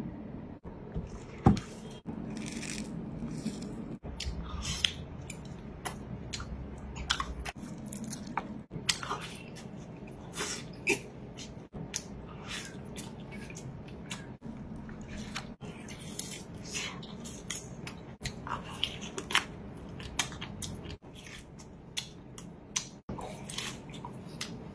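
A man eating grilled lobster close to the microphone: repeated short crunches, bites and chewing smacks.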